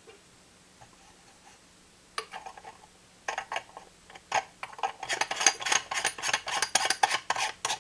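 Light, sharp clicks and rattles of small hard objects being handled. A few scattered clicks start about two seconds in, then they come thick and fast for the last three seconds and stop suddenly at the end.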